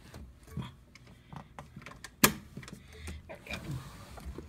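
Clicks and knocks from a heavy sliding balcony door being unlatched and pushed. There is one sharp, loud click a little past two seconds in, and a low rumble as the door is shoved.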